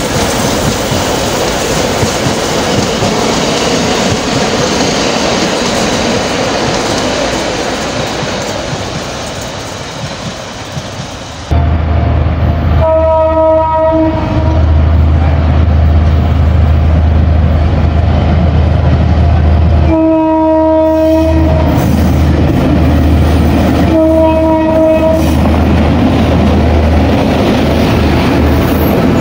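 A freight train of container wagons rolling past with steady wheel-on-rail noise that slowly fades. Then an EMD GR12 diesel-electric locomotive runs with a loud low engine rumble and sounds its horn three times, about a second each, as it pulls hopper wagons by.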